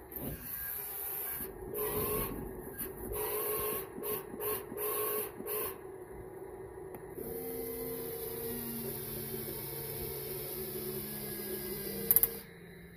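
Small electric gear motors of a Top Race RC toy forklift whining in short stop-start bursts as it is driven and worked. The whine then runs steadily for about five seconds and ends with a couple of sharp clicks.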